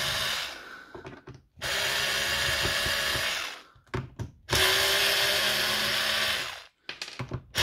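Draper 3.6V cordless screwdriver running in bursts of about two seconds as it drives screws out of a plastic tool housing, with short clicks and taps in the pauses between runs.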